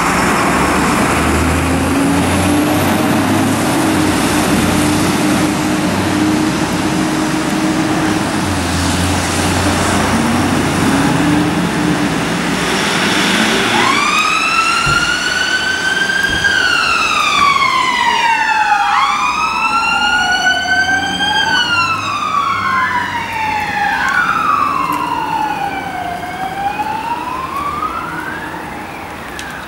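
A fire engine's diesel engine running and revving as it pulls out of the station. About halfway through, two emergency-vehicle sirens start wailing, their rising and falling pitches overlapping and crossing each other.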